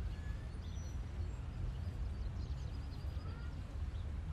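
Outdoor park ambience: a steady low rumble with faint birds chirping now and then.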